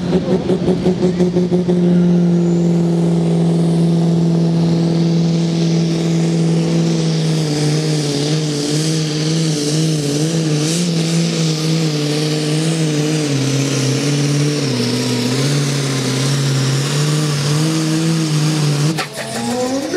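Massey Ferguson farm-class pulling tractor's diesel engine at full throttle, dragging the weight sled. The note holds steady for about seven seconds, then sags and wavers as the sled's load builds, and it cuts back about a second before the end.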